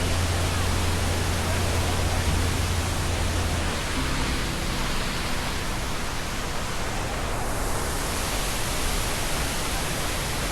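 Steady rushing of the Iguaçu Falls' cascading water, an even wash of noise across all pitches. A low steady hum runs under it and stops about three and a half seconds in.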